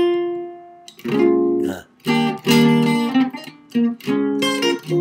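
Jazz guitar played solo: about seven chords, each struck and let ring briefly with short gaps between, moving through a tune's changes that modulate by common tones, one chord's root becoming the third of the next.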